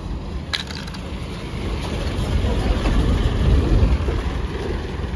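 A bus's engine rumbling close by, swelling to its loudest about three and a half seconds in and then easing off. There is a brief sharp click about half a second in.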